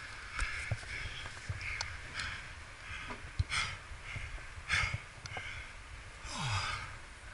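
A rock climber's heavy, effortful breathing close to the microphone: a run of short, sharp breaths in and out while pulling on holds, with a longer exhale near the end that falls into a low grunt. A few soft knocks and scuffs of hands and gear on rock sound between breaths.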